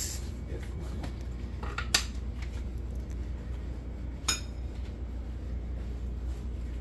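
Kitchen utensils clinking against dishes, with two sharp clinks about two and four seconds in, over a steady low hum.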